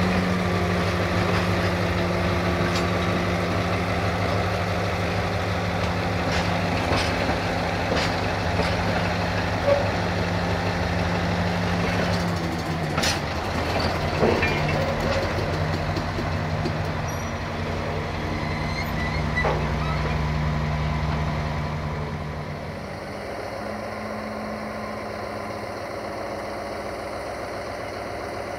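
Tank wagons of a freight train rolling slowly past, their wheels giving a sharp click or knock every few seconds over the rail joints, over the steady hum of a diesel locomotive engine. The engine hum breaks off briefly about halfway through and fades out about three quarters of the way in, leaving a quieter rolling rumble.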